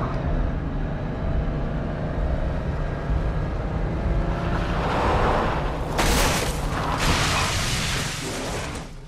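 Car engine and road rumble heard inside the cabin, under a film score. About six seconds in comes a loud crashing noise, with a second burst a second later, as the car crashes off the road.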